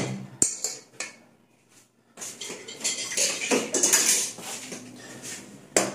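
Dishes and a serving plate clinking and clattering as they are handled, with a brief drop to silence about a second and a half in and a sharp clink near the end.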